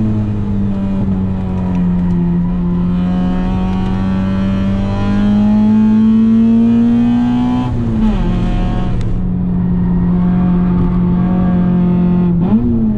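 Small hatchback's engine heard from inside the cabin during a track lap. The revs ease slightly, then climb under acceleration until an upshift drops them about eight seconds in. They hold steady, then briefly rise and fall near the end.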